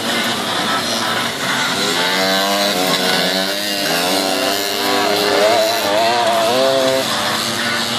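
Several tuned two-stroke Mobylette mopeds racing, their high, buzzing engine notes rising and falling as the riders open and close the throttle. One bike gets louder in the second half as it passes close.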